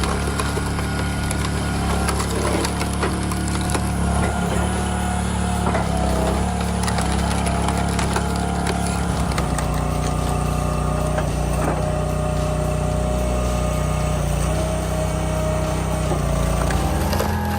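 A machine engine running steadily, with many small clicks and knocks over it.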